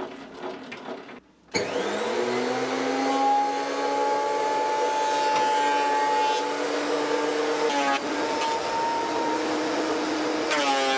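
Benchtop thickness planer switched on about a second and a half in, its motor spinning up and settling into a steady whine. Twice, about eight seconds in and near the end, the sound briefly changes as a board is fed through the cutterhead.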